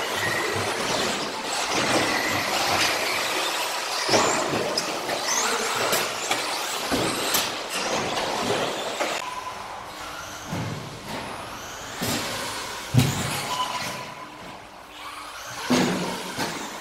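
Radio-controlled off-road buggies running around a carpet track: a fluctuating motor whine and tyre noise that rises and falls as the cars pass, with occasional sharp knocks from landings and impacts, the sharpest about thirteen seconds in.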